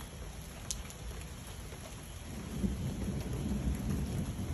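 Rain falling steadily, with a low rumble of thunder building about two seconds in and easing off near the end.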